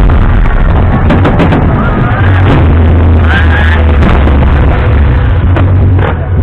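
Loud music with a heavy, steady bass, played over loudspeakers, with a voice or melody over it and a few sharp firework bangs cutting through.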